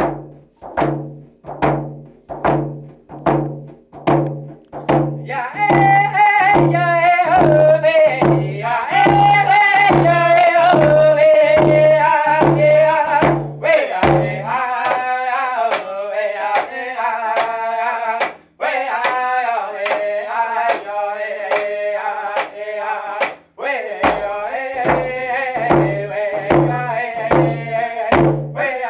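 Two men singing a round dance song in high voices to the steady beat of hand drums, about two strokes a second. The drums play alone for the first few seconds before the singing comes in; about halfway the deep drum beat drops back, returning near the end.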